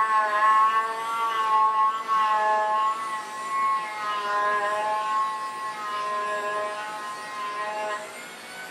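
Handheld rotary tool running a burnishing bit against the edge of a leather card holder to burnish it with gum tragacanth. The motor's high whine wavers in pitch as the bit is pressed to the leather and eased off, and it drops away near the end.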